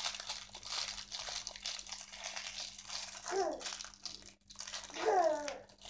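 Small plastic packet crinkling as it is pulled and twisted by hand in an attempt to tear it open. A girl's voice makes two short sounds, about three seconds in and near the end.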